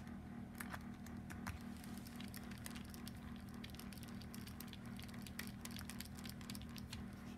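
Light, irregular clicks and taps of small metal parts: the cylinder-head screws of a model four-stroke engine being set in by hand and hex key. A steady low hum runs underneath.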